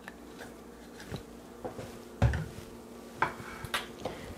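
Light clinks and knocks of kitchen utensils and containers being handled at a stovetop, the loudest a dull thump about two seconds in. Under them runs a steady low hum.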